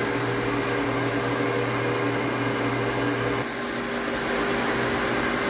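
Pedrollo 1.5 HP electric water pump running with a steady hum. About three and a half seconds in, the lowest part of the hum drops out while the rest carries on.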